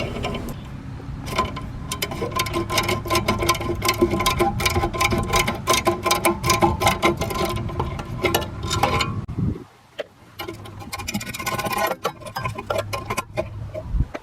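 Cordless power driver running and rattling rapidly as it backs rusty screws out of a metal plate, stopping about nine and a half seconds in. It starts again briefly near the end.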